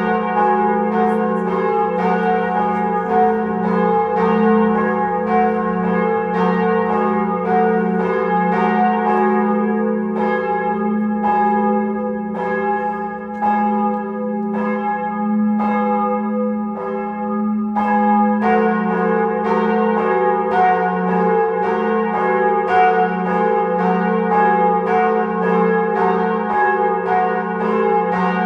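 Church bells ringing in a continuous peal over a sustained hum, struck about twice a second. For several seconds in the middle the strokes slow to about one a second, then the quicker ringing resumes.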